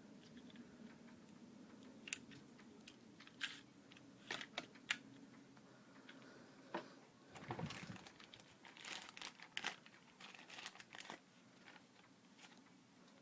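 Plastic packaging and small plastic toy parts being handled: scattered sharp clicks with short crinkling rustles, busiest around the middle.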